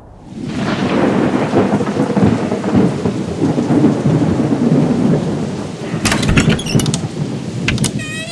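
Thunderstorm sound effect: steady rain with rolling thunder. Sharp cracks come about six seconds in and again at the very end.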